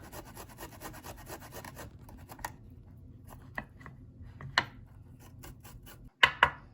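Fresh ginger being grated, rubbed against a grater in quick, even strokes for about the first two seconds, then scattered scrapes and clicks. Two sharp knocks come close together near the end.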